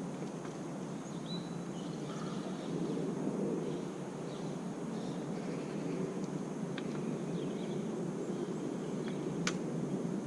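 Steady low outdoor background rumble with a couple of sharp clicks, the louder one near the end.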